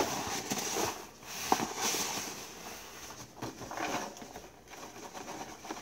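A USPS Priority Mail mailer being handled and turned over: irregular paper rustling and crinkling, with several light taps and clicks along the way.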